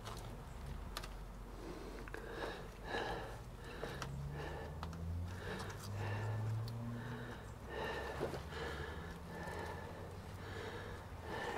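A man breathing hard and sniffing through his nose in short repeated breaths while he strains at close work, with a low grunt about halfway through. A couple of faint clicks come from his hands on the greasy roller chain.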